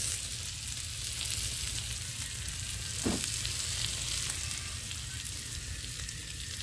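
Mujair (tilapia) fish sizzling on a ridged grill plate over a gas stove burner: a steady, even hiss.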